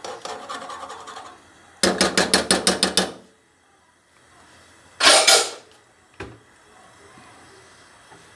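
A metal spoon stirring tomato paste in an aluminium pot, knocking quickly against the metal. Loudest is a fast run of about eight sharp strikes around two seconds in. About five seconds in there is a short, loud burst of noise, then a single click.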